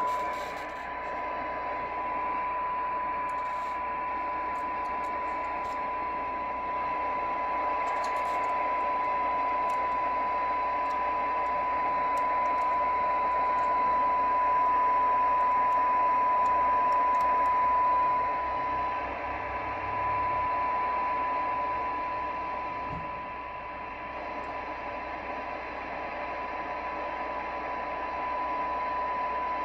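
A Tram D-80 CB radio's speaker plays a steady 1 kHz test tone over receiver hiss. It is a weak, tone-modulated signal from a signal generator, received during receive alignment, where the tone-to-noise balance is read on a SINAD meter.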